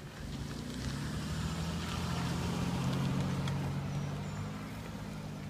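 A car driving past, its engine hum and tyre noise growing louder to a peak about three seconds in and then fading away.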